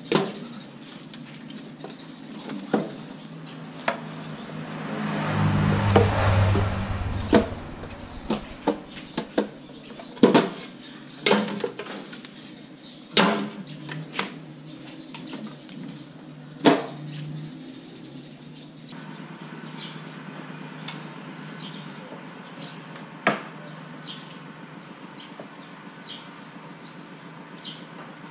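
Scattered sharp knocks and clatters, a dozen or so, as a spit-roasted whole pig is worked off its spit poles onto a metal tray. A low rumbling swell rises and fades about five to seven seconds in.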